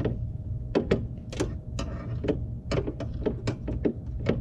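Irregular sharp clicks from the aim adjuster of an aftermarket HID projector headlight being turned by hand, coming faster in the second half, over a steady low hum.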